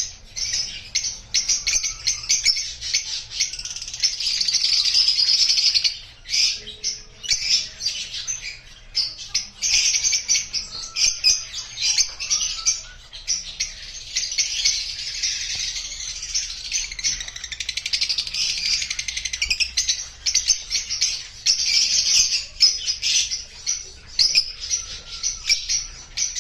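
Rosy-faced lovebirds chirping and chattering without a break: rapid, high, shrill notes that overlap thickly throughout.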